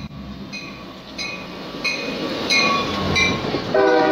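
Norfolk Southern diesel freight locomotives passing at close range, their engine and wheel rumble growing louder. A high ringing repeats about every two-thirds of a second, like the locomotive bell. The horn comes on loud near the end.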